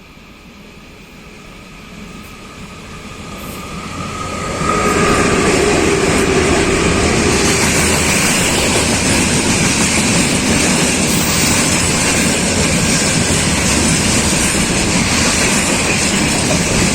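Freight train hauled by a VL11 electric locomotive growing louder as it approaches, then passing close by at speed from about five seconds in, with loud, steady rolling noise of wheels on rail.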